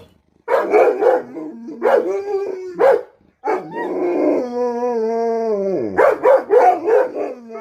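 Dogs squabbling, barking in short bursts. One long howling cry is held for about a second and a half around the middle and falls in pitch at its end, followed by quick barks.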